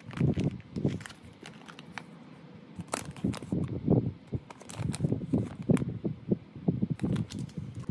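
Clear plastic packaging bag crinkling and rustling as the metal key ring sealed inside is handled, with light clicks, taps and bumps against the table. It goes quieter for a moment about a second in, then picks up again.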